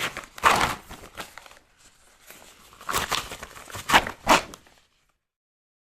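Rubber glove being handled and worked, a string of rubbing, crinkling bursts with a short lull about two seconds in and the loudest strokes near four seconds; it stops about five seconds in.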